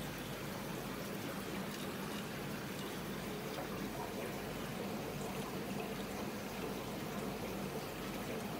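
Aquarium water running steadily: the filter's return stream pours into the tank and stirs up bubbles.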